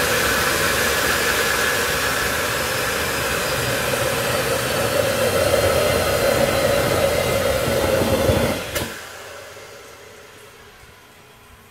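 Homemade turbojet built from a car turbocharger, running with a steady rushing noise and a held whine. About eight and a half seconds in the sound drops away quickly, with a click, leaving a fading hiss.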